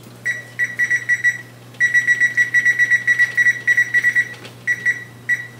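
Electric range's control-panel keypad beeping as its buttons are pressed to set the cook time: short, high beeps of one pitch, about five a second in runs, with a pause a little over a second in and a few single beeps near the end.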